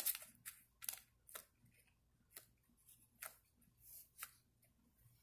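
Faint, irregular taps and soft rubbing of hands pressing and patting modeling clay flat on cardboard.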